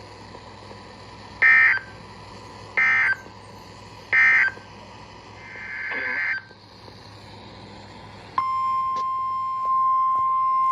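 NOAA Weather Radio emergency alert signals. First come three short bursts of buzzy digital SAME data tones, about a second and a half apart, marking the end of the tornado warning message, then a brief swelling hiss. About eight seconds in, the steady single-pitch 1050 Hz weather alert tone starts and holds.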